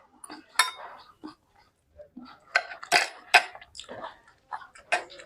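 A person eating close to the microphone: irregular wet smacks and sharp clicks of chewing, with a few louder clicks.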